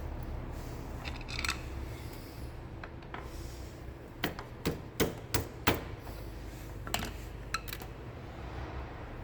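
Sharp metal clicks and clinks of hand tools and small bolts being handled during motorcycle disassembly: a handful in quick, uneven succession a little past the middle, then two more, over a steady low hum.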